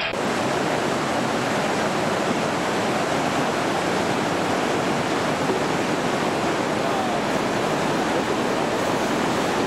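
Whitewater rapids of a mountain river rushing over rocks, a steady loud rush of water.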